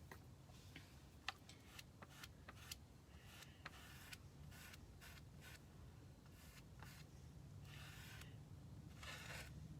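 Faint scraping strokes of a squeegee spreading paste across a silk-screen stencil, with a few small clicks in the first half.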